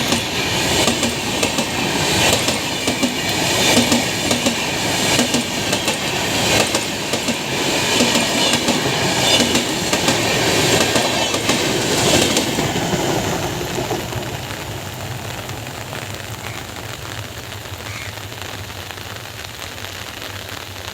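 Express train coaches rolling past at speed with a rhythmic clickety-clack of wheels over rail joints, fading away about two-thirds of the way through and leaving the steady hiss of heavy rain.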